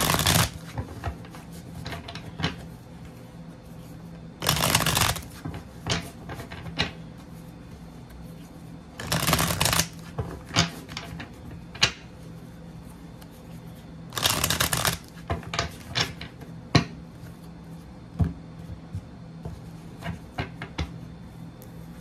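A deck of tarot cards being riffle-shuffled by hand: four quick fluttering riffles, each under a second, about five seconds apart. Between and after them come light clicks and taps as the deck is gathered and squared.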